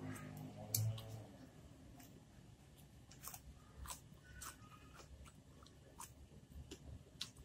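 Close-miked chewing by a person eating rice, sambal and raw vegetables by hand: soft wet mouth sounds with scattered small clicks and crunches.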